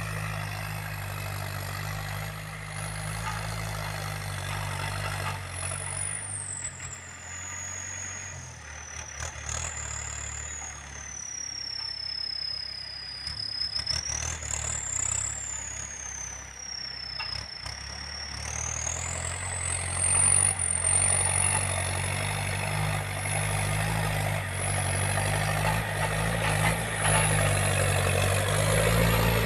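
Yanmar EF514T tractor's diesel engine running steadily as it works wet, freshly tilled soil, growing louder over the last ten seconds as it comes closer.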